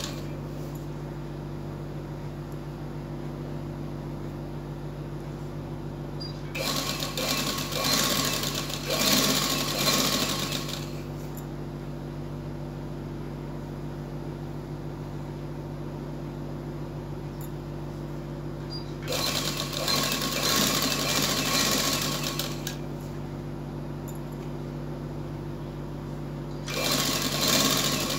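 Sewing machine stitching a fabric strip in three runs: two of about four seconds, and a third starting near the end. A steady low hum carries on through the pauses between runs.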